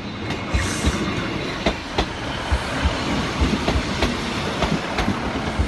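Class 156 diesel multiple unit passing over the level crossing, a steady rumble with its wheels clacking over rail joints, often in quick pairs.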